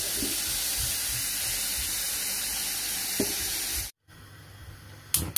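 Tap water running steadily into a small stainless steel saucepan of chopped mushrooms. It cuts off about four seconds in, and near the end the gas hob's spark igniter gives its first click.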